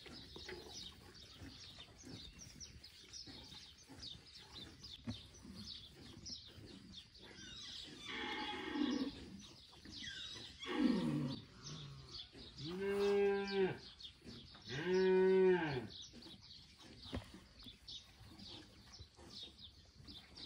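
Cattle mooing about four times in the middle stretch. The last two calls are clear and steady in pitch, each about a second long.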